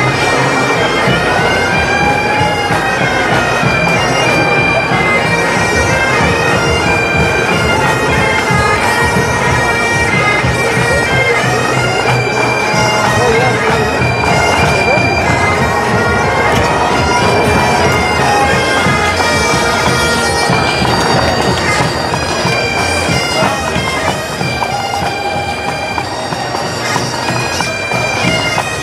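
Highland bagpipes of a marching pipe band playing a tune over their steady drones.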